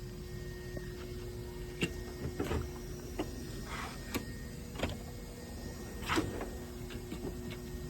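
Scattered clicks and knocks of hand tools being handled in a metal tool cart, with a few short sliding scrapes of drawers or parts being moved.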